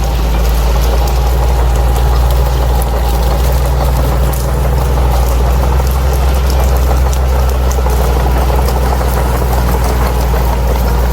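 Bulldozer's diesel engine running steadily with a deep, even drone, with scattered light clicks over it.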